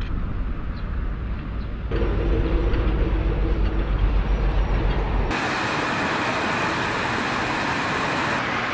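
Road traffic with trucks driving past: a low engine and tyre rumble. About five seconds in it cuts abruptly to a steady outdoor hiss.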